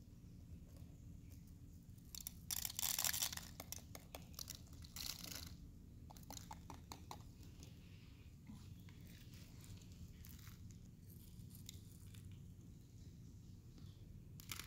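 Dry rice being spooned off paper plates and poured into empty plastic water bottles: a faint rustling patter of grains, loudest about two to three and a half seconds in, with another pour about five seconds in and small clicks of plastic spoons and bottles after, over a low steady room hum.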